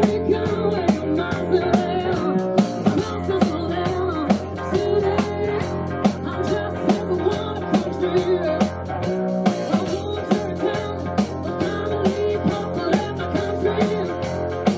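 Live rock and roll band playing: guitar and bass over a steady drum kit beat with cymbals.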